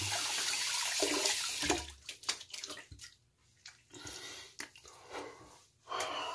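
Water running from a tap, shut off about two seconds in, followed by a few faint wet rubbing sounds of a hand on a freshly shaved, slick face.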